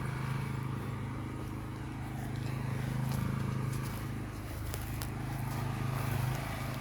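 A small petrol engine running steadily at a constant pitch, a low even drone.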